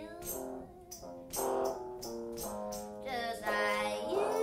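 Live band music: held keyboard chords with regular percussion strikes, and a voice singing a line near the end.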